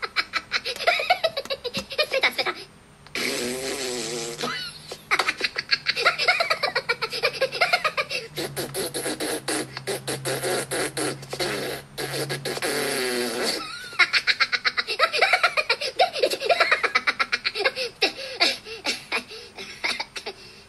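Audio of a Minions cartoon clip playing: high-pitched gibberish chatter and laughing from the Minion characters, with rapid clicking mouth sounds.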